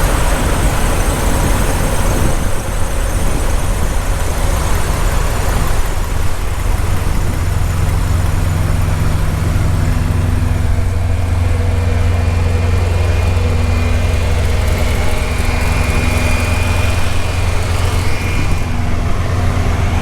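Diesel semi-truck engine idling steadily: an even, low rumble.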